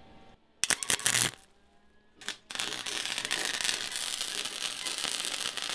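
Flux-core wire welder arc welding steel reinforcement plates onto a car's rear subframe: a short burst of arc crackle about half a second in and a brief one around two seconds, then a steady, dense crackle from about two and a half seconds in as a continuous bead is run.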